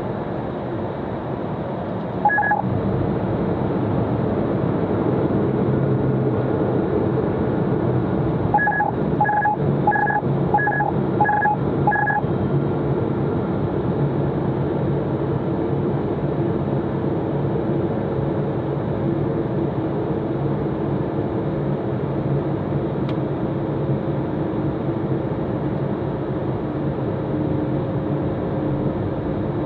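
Steady cockpit noise of an Eclipse 500 light jet in flight: its twin turbofans and the airflow make a continuous hum. Short electronic beeps sound once about two seconds in, then six times in quick, even succession around the ten-second mark.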